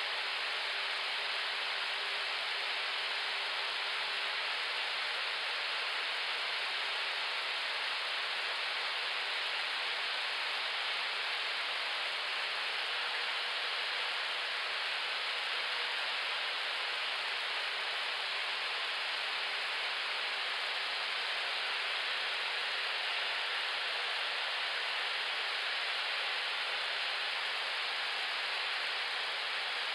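Steady rushing of airflow on the flight deck of an Airbus A321neo in flight, with a faint steady hum underneath.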